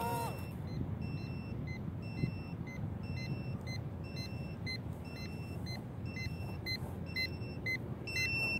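A micro quadcopter's motors wind down at the very start. Then an electronic beeper sounds a repeating alarm: longer beeps at first, then short beeps about twice a second, getting louder near the end. A steady low outdoor rumble lies underneath.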